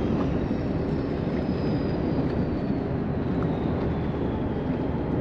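Motor yacht's engines idling as a steady low rumble, with a faint high whine slowly falling in pitch.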